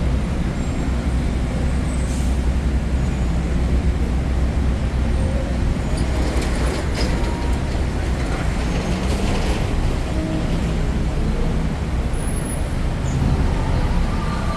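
Heavy city street traffic in the rain: a steady low rumble of buses and cars with continuous hiss from wet roads and rain. A few brief hisses come through in the middle, like a bus's air brakes.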